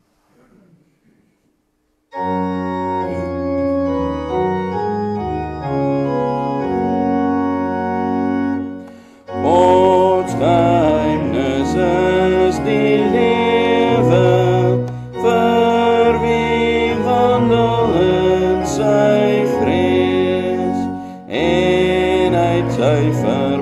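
Organ playing a hymn tune in sustained full chords. About nine seconds in, a congregation starts singing along with it, pausing briefly between lines.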